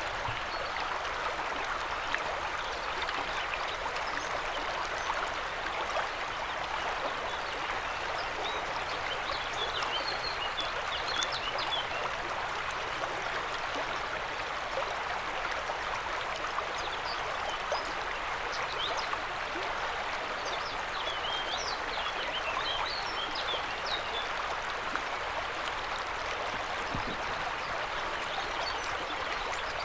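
River water flowing and rushing steadily, with short high chirps now and then above it.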